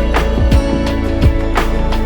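Background music with sustained tones and a steady drum beat, about three strokes a second.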